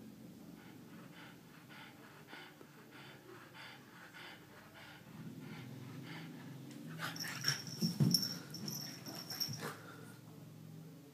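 French bulldog breathing hard in wheezy, snorting pants, about two breaths a second. From about seven seconds in, louder sharp noises of the dog and a Siamese cat tussling take over, loudest near the eight-second mark.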